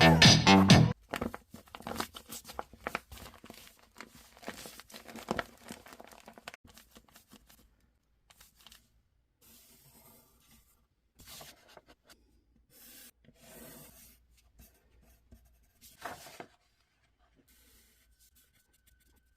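Close handling noises of craft materials: tearing, rubbing and rustling in short irregular bursts, busy for the first several seconds and thinning to a few faint scattered rustles later.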